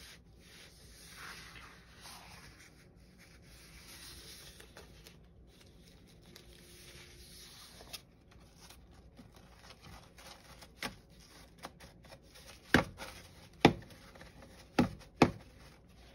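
Loose newsprint pages of an old comic book rubbing and rustling as hands slide, smooth and lift them together as one stack, with four sharp knocks in the last few seconds.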